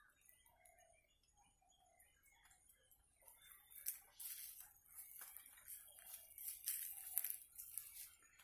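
Quiet woodland with faint scattered rustles and light crunches of footsteps on dry leaf litter. A faint high hiss comes in about three seconds in.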